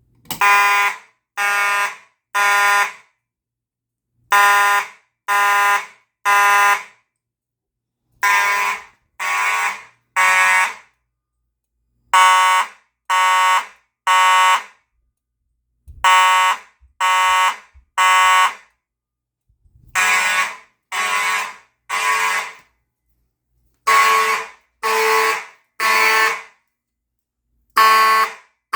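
Fire alarm horn sounding the temporal-3 evacuation pattern: three buzzy half-second blasts, a pause, then three again, repeating steadily about every four seconds.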